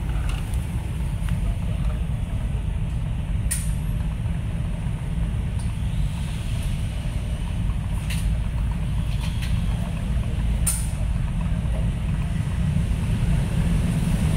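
Steady low rumble of background noise, with three short sharp clicks.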